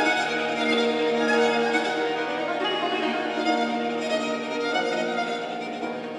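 Persian traditional music: a kamancheh bowed in long held notes over a hammered bass santour.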